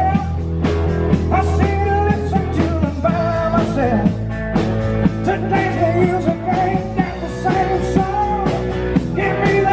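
Live rock band playing in a bar: a male singer over guitar, bass and drums with a steady beat.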